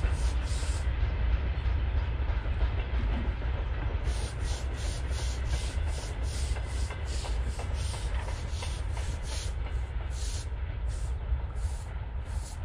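Long freight train on the LHS broad-gauge line passing at a distance, with a steady low rumble and its wagon wheels clacking in a regular rhythm.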